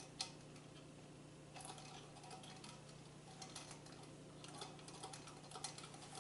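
Faint scattered clicks and light taps of hands handling a homemade tin-can Stirling engine, adjusting its wire crank linkage and flywheel; the sharpest click comes just after the start. A steady low hum runs underneath.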